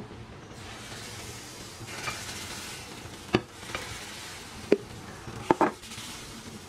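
Dosa batter sizzling as it is ladled into the hot wells of a cast iron mini uthappam pan, a steady hiss that starts about half a second in. A few sharp clinks of the steel ladle against the pan sound over it, two of them close together near the end.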